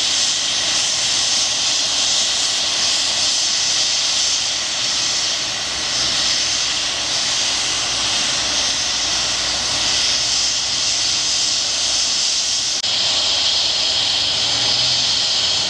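AgustaWestland AW139 air ambulance helicopter's turbine engines running on the ground, a steady high-pitched hiss that shifts slightly near the end.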